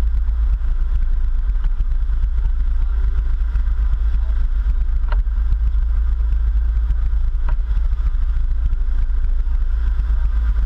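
Sport-fishing boat's engines running with a steady low rumble, as the boat churns through its wake. Two short sharp clicks come about five and seven and a half seconds in.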